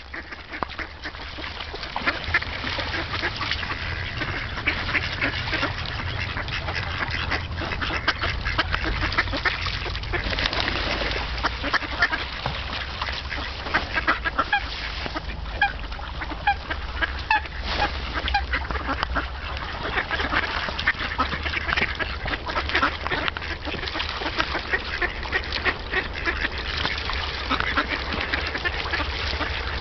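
A flock of mallard ducks quacking, many short calls overlapping without a break, over a steady low rumble.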